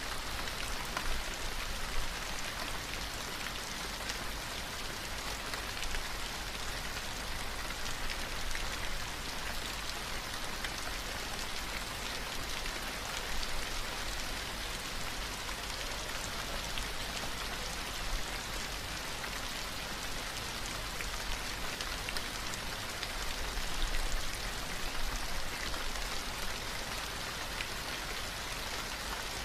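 Steady recorded rain: an even hiss of rainfall dotted with many small drop ticks, used as the cover sound of a subliminal track.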